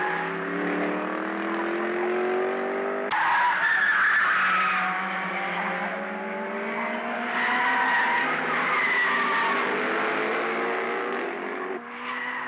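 Touring cars racing, their engines rising in pitch as they accelerate, with tyres squealing. The sound changes abruptly several times, as if cut between shots.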